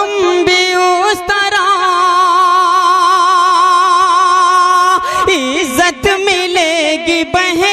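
A man sings a naat (Islamic devotional verse) solo. After a few melodic turns he holds one long note with a wavering vibrato from about a second and a half to five seconds in, then breaks into ornamented runs again.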